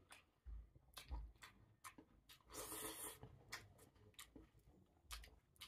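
Faint eating sounds: scattered small clicks and soft thumps, with a brief crunchy rustle about two and a half seconds in.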